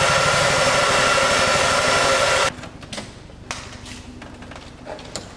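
Handheld hair dryer blowing, a steady rush of air with a motor whine, warming the adhesive for a bracket; it is switched off abruptly about two and a half seconds in, leaving a few faint clicks.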